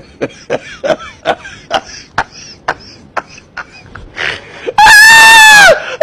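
Sharp knocks, about two or three a second at uneven spacing, as hands strike the arms of a makeshift wooden training dummy. Near the end comes one loud high-pitched yell, held about a second and dropping as it stops.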